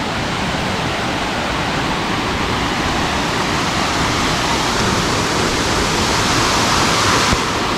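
Rushing water of a small waterfall, a steady loud hiss that slowly grows louder.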